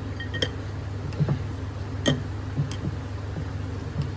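Grated khoya and sugar being mixed by hand in a ceramic bowl, with irregular light clicks and clinks against the bowl, about one or two a second. A steady low hum runs underneath.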